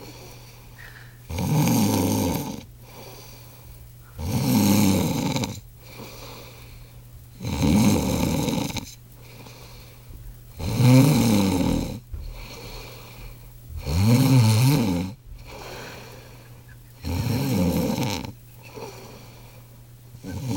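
A sleeping man snoring loudly and regularly: six long, rasping snores of about a second and a half each, one roughly every three seconds, with quieter breathing in between, and the next snore beginning right at the end.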